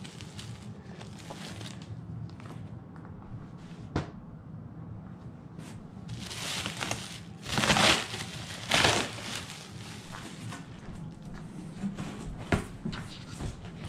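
Thick black plastic sheeting crinkling and rustling as it is handled and pulled, loudest in a few bursts about halfway through, with a sharp tap about four seconds in.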